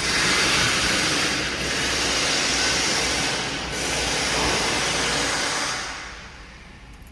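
Toyota 2AR-FE four-cylinder engine idling under a loud steady hiss. The hiss dips briefly twice and dies away about six seconds in, leaving the engine's low hum.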